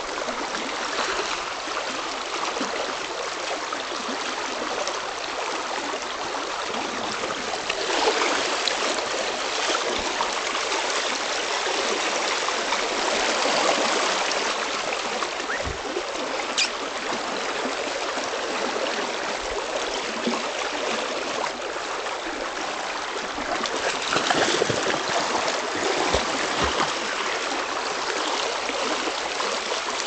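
Running river water at the bank, a steady rushing noise that swells and eases slightly a few times.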